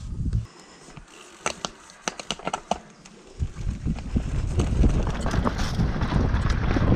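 Mountain bike setting off down a dirt trail: a run of sharp clicks and rattles from the bike about a second and a half in, then the noise of tyres on dirt and wind on the microphone building up from about three and a half seconds in as the bike gains speed.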